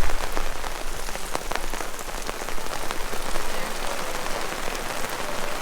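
Steady rain falling, an even hiss with many sharp drop taps close by. A dull low bump at the very start.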